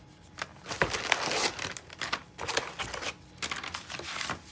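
Packaging crinkling and rustling as a replacement computer part is handled and unwrapped, with a denser stretch about a second in and a few sharp clicks.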